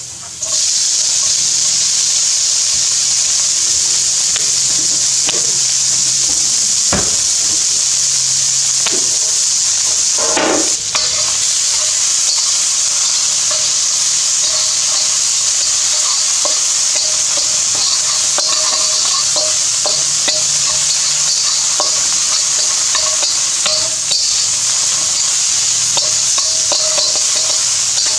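Chopped bacon sizzling in a hot wok, the sizzle starting suddenly as the bacon goes in and then holding steady, with scrapes and clicks of a metal slotted spatula stirring it against the wok.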